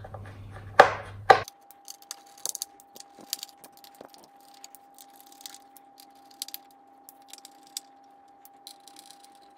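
Small metal screws being undone with a screwdriver from a computer motherboard and its metal frame: scattered light metallic clicks and ticks, with two sharper knocks about a second in.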